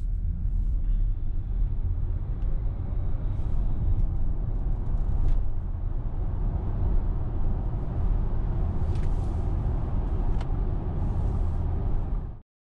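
Cabin noise of a VW ID.4 1st Max electric SUV accelerating hard at full pedal from about 15 to nearly 100 km/h on winter tyres: a steady low road and tyre rumble with wind noise. It cuts off suddenly near the end.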